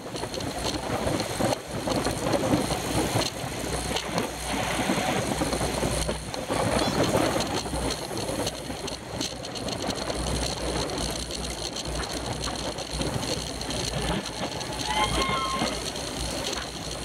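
Wind buffeting the microphone of a bike-mounted camera riding at race speed in a bicycle pack. It comes as a steady low rumble and rush, with road and bike rattle crackling through it.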